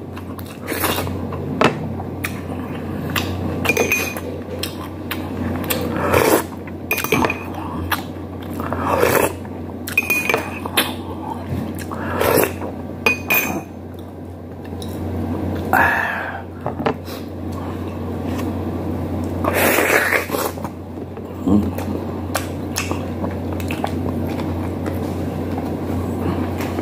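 Close-up eating sounds of a man eating by hand: chewing and mouth smacks, with occasional clinks against a ceramic plate, over a steady low hum.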